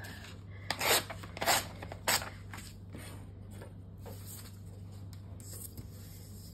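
A printed paper sheet torn along a steel ruler in three quick rips, leaving a rough torn edge; softer rustling of the paper being handled follows.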